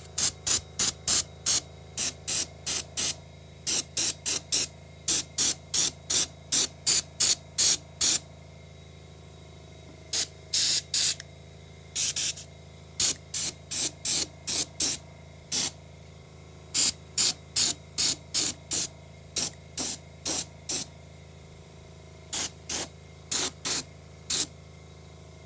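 Airbrush spraying thinned black paint in many short, quick hissing bursts, roughly three or four a second, in runs broken by brief pauses. A low steady hum runs underneath.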